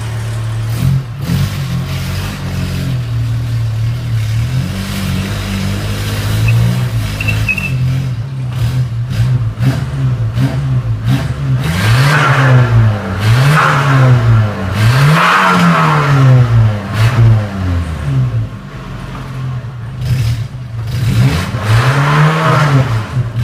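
1993 Nissan pickup's 2.4-litre engine running steadily as the truck rolls close by, then revved repeatedly while it stands: about five quick rises and falls in pitch in a row, and one more near the end.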